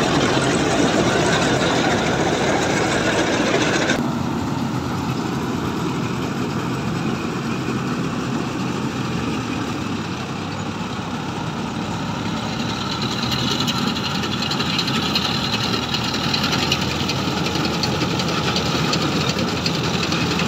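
Tractor-mounted combine harvester running in a paddy field, its engine and threshing machinery making a loud, steady mechanical noise close by. About four seconds in the sound drops abruptly and thins, and the machine is then heard from farther off as it cuts rice, growing a little louder near the end.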